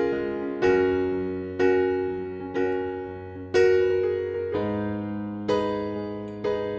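Background music: a gentle electric piano playing slow chords, about one struck chord a second, each ringing and fading before the next.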